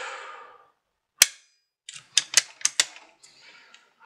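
Bolt-action rimfire rifle (CZ 457 MTR) clicking: one sharp, loud click about a second in, then a quick run of about six clicks a second later and a few fainter ones. These fit the trigger being dry-fired on the new lighter YoDave spring and the bolt being worked.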